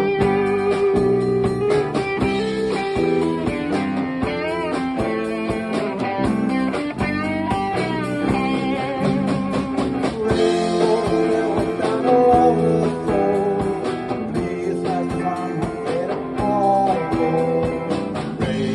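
Live band music: an instrumental passage led by guitar, with a steady beat underneath.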